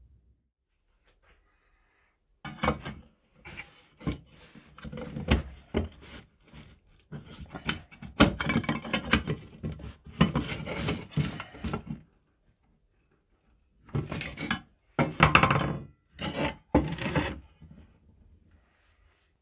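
An old steel first-aid tin handled on a wooden bench: the lid pushed onto and worked against the body, with irregular scrapes, clinks and knocks of metal on metal and metal on wood. It comes in two bouts, starting a couple of seconds in, with a pause partway and silence again near the end.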